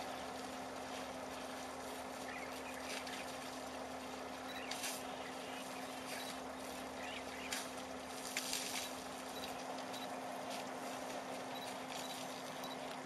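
Water splashing in a few short bursts as elephants bathe in a waterhole, over a steady low hum.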